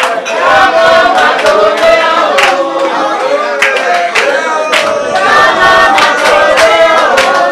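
A group of voices singing a chant-like song together, with repeated sharp claps keeping time.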